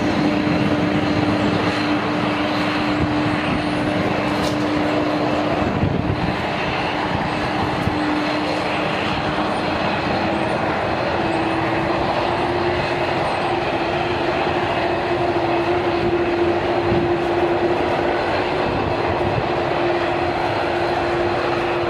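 Jet airliner engines running steadily at low power, a continuous rushing noise with a steady hum that rises slightly in pitch about halfway through.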